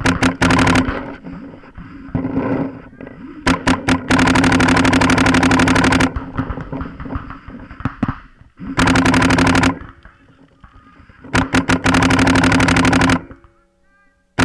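Paintball marker firing strings of rapid shots at very close range: a few quick shots near the start, then three long rapid-fire strings, the longest about two seconds, with a steady low hum under them.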